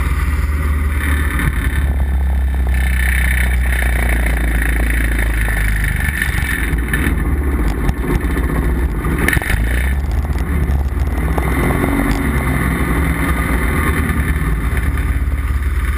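Piper J-3 Cub in flight, heard from a camera outside on the wing strut: a steady engine drone mixed with wind rushing over the microphone.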